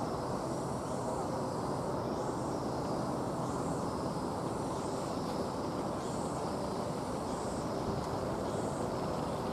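Distant jet engines of a Boeing 737-800F (CFM56-7B turbofans) running at taxi idle as the freighter taxis and turns, heard as a steady rumble and hiss.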